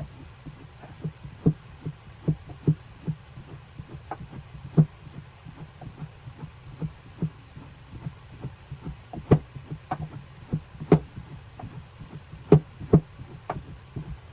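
Irregular light knocks and taps, some sharper than others, over a steady low hum.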